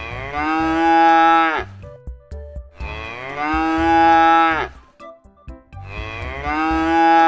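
Cow mooing three times, each a long call of about a second and a half, a few seconds apart, over light background music.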